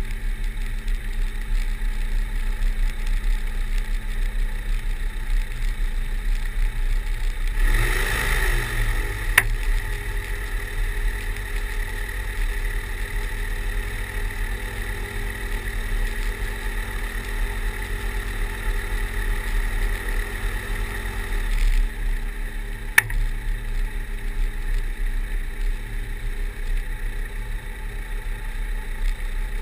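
Pipistrel Virus Short Wing light aircraft's engine and propeller running at taxi power, with propwash buffeting the microphone into a heavy low rumble. The engine note changes about eight seconds in and again near twenty-two seconds, and there are two sharp clicks.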